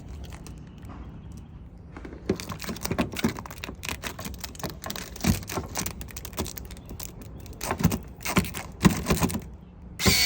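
Quick, irregular plastic clicks and taps from hands working on a Mazda Miata's turn signal light assembly, starting about two seconds in.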